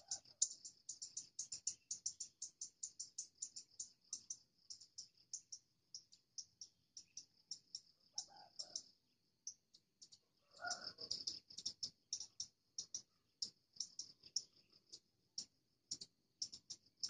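A high-pitched insect ticking in a fast regular train, about six pulses a second, then slowing and turning uneven. Two short low clucks from red junglefowl come near the middle, a couple of seconds apart.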